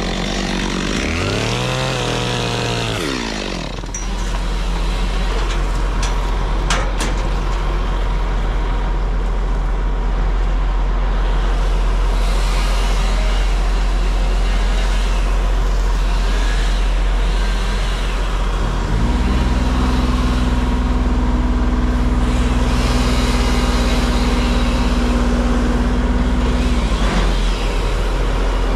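Heavy diesel engine running steadily, with a brief rev up and down in pitch early on. About nineteen seconds in it throttles up to a higher steady speed, then drops back after about eight seconds; a couple of sharp clicks sound about six to seven seconds in.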